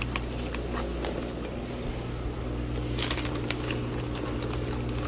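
Clear plastic fish-shipping bags crinkling as a hand rummages among them, with a few short crackles about three seconds in, over a steady low hum.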